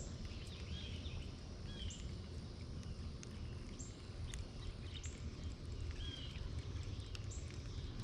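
Small birds chirping in short high calls, roughly once a second, over a steady low rumble of outdoor ambience.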